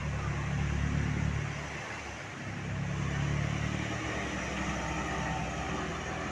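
Bus engine running with a low drone that swells in loudness twice, about a second in and again around three seconds, then settles.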